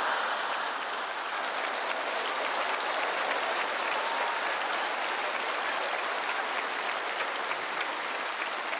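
Large live audience applauding steadily, many hands clapping at once in a big hall, in response to a punchline.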